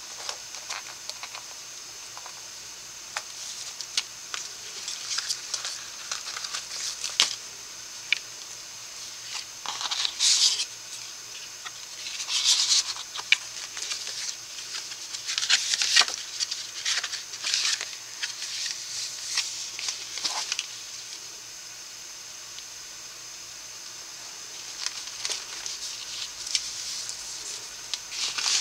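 Cardstock pages and flaps of a handmade paper folio rustling and brushing as hands open and close it, with scattered sharp taps and clicks. A faint steady high hiss runs underneath.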